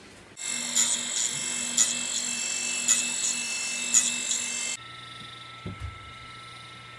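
Small hobby table saw cutting into a wooden model ship frame piece: a steady high machine whine with sharper peaks about once a second. The cutting stops suddenly after nearly five seconds, leaving a quieter steady hum.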